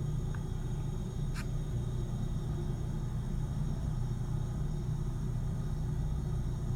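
Steady low rumble of jet aircraft engines, with faint steady high whines above it.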